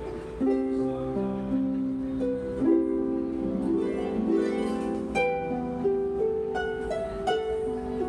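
Solo concert harp being played: plucked notes and chords ringing on over one another, with a quick run of notes about halfway through.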